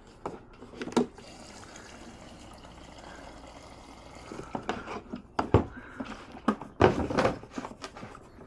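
Liquid pouring steadily for a few seconds, likely fuel going into the small engine's tank before a start attempt, with sharp knocks and clatter of handling before and after.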